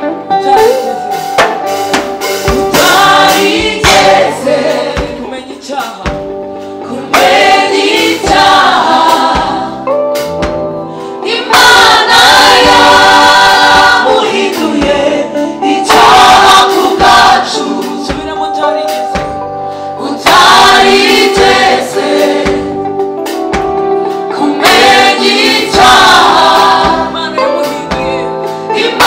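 Gospel worship choir of mainly women's voices singing in harmony into microphones, a lead singer carrying the melody over the group, with band accompaniment and a regular drumbeat.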